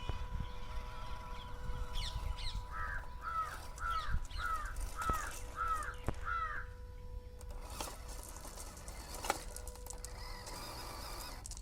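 A bird calling a quick series of about eight arched calls, roughly two a second, over a steady low rumble and a faint constant hum.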